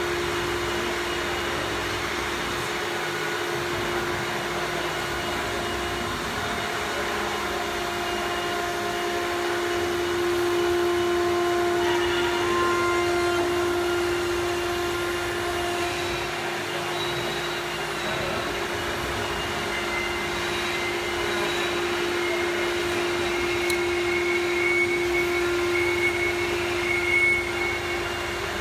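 CNC router spindle running at a steady speed: a constant whine with a noisy rush over it, and fainter higher tones coming and going.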